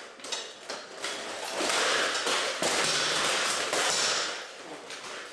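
Steel swords and plate armour clashing as two armoured fighters trade blows and grapple. A few sharp metal hits come first, then a loud stretch of rattling, clattering steel for about two and a half seconds that dies away near the end.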